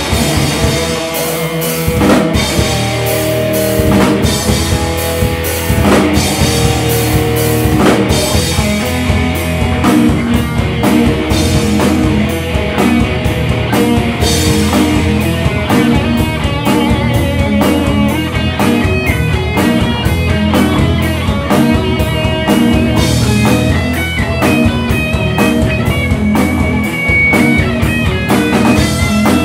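Thrash metal band playing live: distorted electric guitars, bass guitar and a drum kit with steady, driving drum hits. About halfway through, a high melodic guitar line comes in over the riffing.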